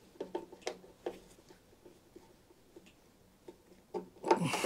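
Irregular light metallic clicks of a screwdriver doing up small screws in a cylinder mower's drive housing, with a louder, breathy noise near the end.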